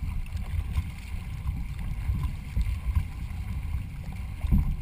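Wind rumbling on a canoe-mounted microphone over the splash and wash of water from a racing canoe under way, with louder surges near the end.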